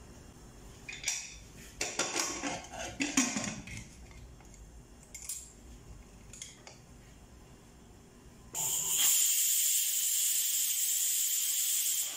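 Metal clanking as the aluminium lid of a Royalford pressure cooker is handled and locked on. About eight and a half seconds in comes a loud, steady high-pitched hiss: the cooker whistling as pressure builds and steam jets out under the weight. It cuts off abruptly after about three and a half seconds.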